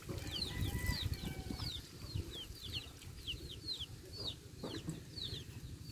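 Birds chirping: many short, high chirps that each fall in pitch, about two to three a second, over a low rumbling noise.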